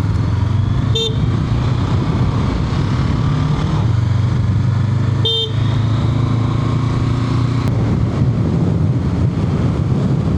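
Honda CB500F's parallel-twin engine running under way, its pitch shifting a few times. Two short horn toots come, one about a second in and one about five seconds in.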